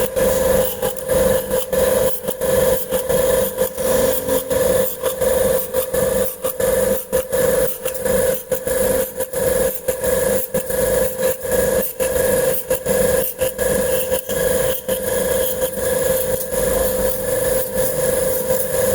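Bangle-making machine running: a steady mechanical hum with a constant pitch, broken by rapid, irregular clicking and clattering throughout.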